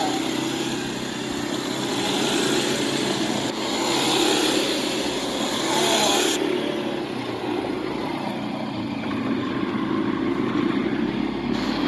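Quad bike (ATV) engines running steadily as a group rides along a dirt track. Their tone changes abruptly about six seconds in.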